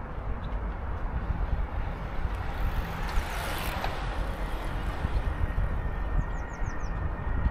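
Outdoor city background noise with a steady low rumble, swelling as a vehicle passes around the middle, and a short run of high chirps near the end.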